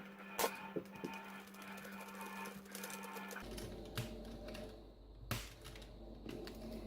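A few light clicks and taps of small plastic parts and wiring being handled on an RC car, over a faint steady hum that gets louder about three and a half seconds in.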